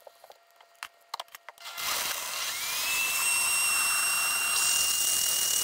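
A few clicks, then a high-speed countertop blender starts about two seconds in, its motor whine rising briefly and settling into a steady high pitch as it blends a spinach, berry and water smoothie.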